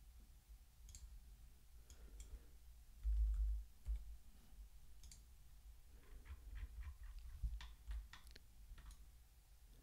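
Faint clicks of a computer mouse and keyboard, scattered at first, then a quick run of them about six to eight and a half seconds in. A short dull low bump about three seconds in is the loudest sound.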